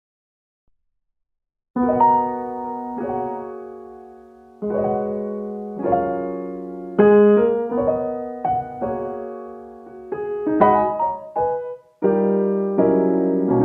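Piano music of slow, struck chords that ring and fade between each one, starting after a short silence.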